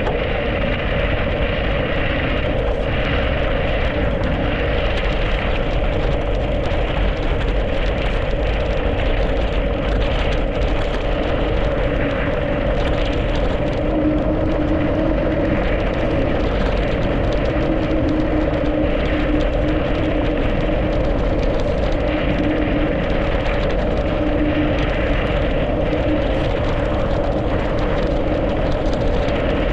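Mountain bike rolling fast downhill on a snowy, icy road: a steady rush of wind and tyre noise with a constant hum running through it. In the second half, a lower tone comes and goes.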